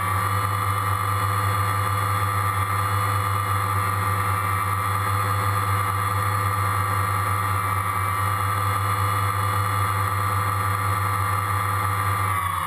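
Steady engine drone of the aircraft carrying the camera, heard from on board: a low hum with a high whine over it, unchanging in level.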